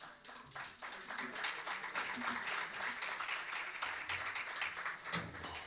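Audience applauding, a dense patter of many hands clapping that starts just after the beginning and thins out near the end.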